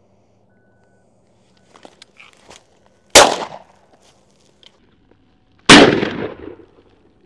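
Two shotgun shots about two and a half seconds apart, each a sharp bang with a short echo trailing off, fired at passing doves. A few faint clicks come before the first shot.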